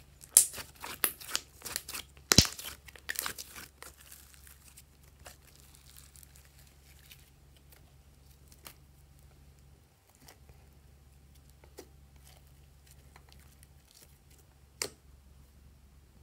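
Glossy slime squeezed and stretched by hand, giving a rapid run of sharp crackling pops from trapped air for the first few seconds, then only scattered faint clicks, with one more sharp click near the end.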